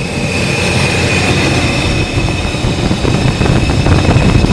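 A 1980 Mercedes 450SL's 4.5-litre V8 running, with an uneven low rumble and a steady high whine over it. It gets a little louder near the end.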